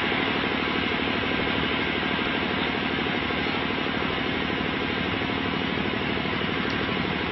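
Steady, even rumbling noise and hiss with a fast low flutter and no distinct events.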